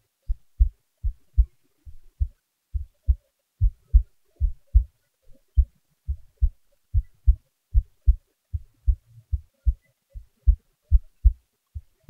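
A human heartbeat heard up close: steady, low, paired lub-dub thumps at a slow, resting pace.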